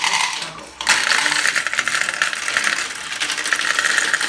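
Marbles rolling and clattering through a plastic marble run: a dense stream of rapid clicks and rattles, which fades briefly and then starts again suddenly just under a second in.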